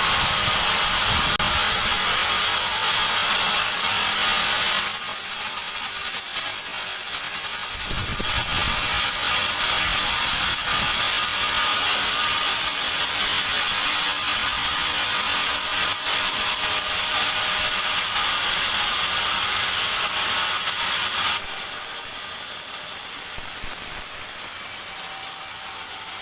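Large band sawmill cutting through a teak log, a loud hissing, rasping cut noise. It eases about five seconds in, picks up again around eight seconds, and drops back to a quieter running sound about twenty seconds in.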